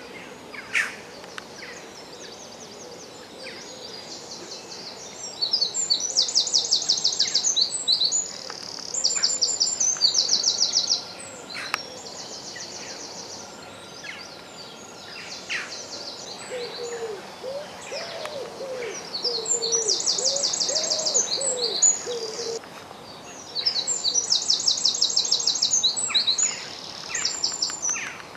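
Wild birds singing: a loud, high, rapid trilling song repeated in phrases of two to three seconds, four or five times, with a run of softer, lower calls in the middle.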